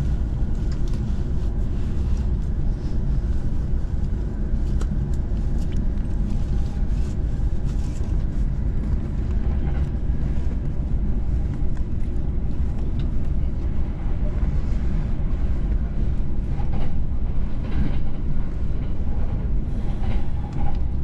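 Running noise of a JR commuter train heard from inside the carriage: a steady low rumble of wheels on rails, with scattered faint clicks and rattles.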